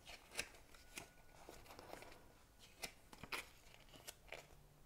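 Faint crackling and rustling of a folded paper user guide being unfolded and its pages opened, in a few short separate crackles, the loudest a little past the middle.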